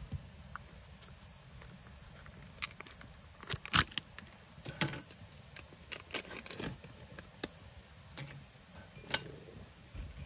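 Irregular clicks, taps and light knocks of small objects being handled, the loudest cluster a few seconds in.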